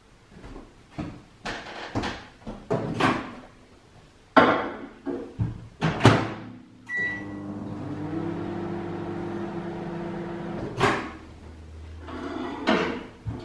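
Microwave oven being loaded and started: several knocks and clicks as the door is shut and the buttons are pressed, a short beep about seven seconds in, then the steady hum of the oven running for about four seconds, ended by another knock.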